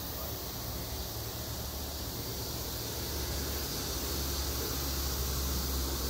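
Cicada buzzing, a steady, unbroken high-pitched drone, over a low rumble that grows a little stronger in the second half.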